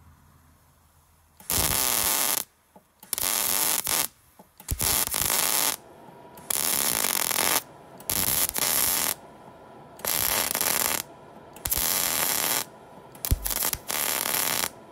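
Electric arc welding on the steel cutting deck: the arc crackles and hisses in short welds of about a second each, some eight or nine in a row with brief pauses between. Weld is being laid over cracked, weakened spots to reinforce the deck.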